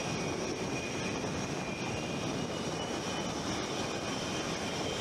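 F/A-18 Hornet's twin General Electric F404 turbofan engines running at low taxi power: a steady rush with a thin, high, unchanging whine over it.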